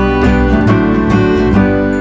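Background music: acoustic guitar strumming chords at a steady, even pace.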